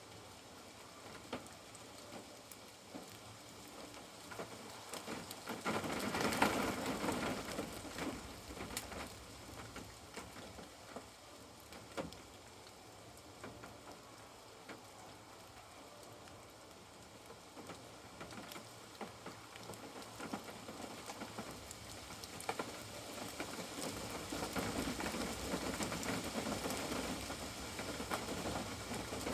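Rain falling on a caravan, a steady hiss with scattered sharp drop ticks. There is a brief louder rush about six seconds in, and the rain grows heavier toward the end.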